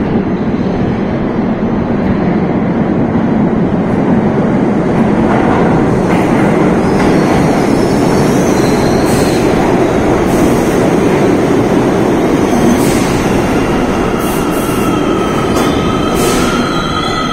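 NYC Subway R62A train arriving at an underground station platform: a steady loud rumble of wheels on rail, with short high squeals of wheels and brakes from about halfway. A held squeal sets in near the end as it slows.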